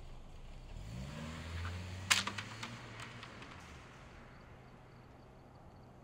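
A sedan's engine rises in pitch as the car pulls away, holds steady as it drives off, and fades after about four seconds. About two seconds in comes a sharp, loud click, followed by a few lighter clicks.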